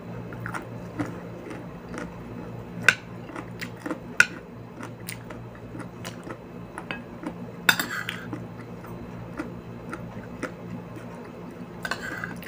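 Metal spoon and fork clicking and scraping against a plastic food tray, with chewing between the clicks. A few sharp clicks stand out over a steady low hum.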